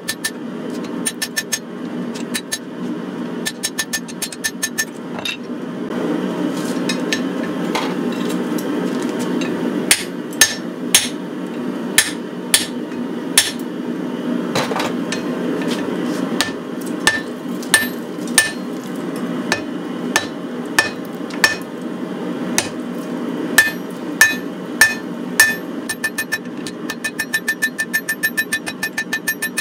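Hand hammer striking a glowing, forge-hot Damascus steel billet on an anvil. Runs of quick light strikes near the start and near the end, heavier blows less than a second apart through the middle, over a steady low rumble.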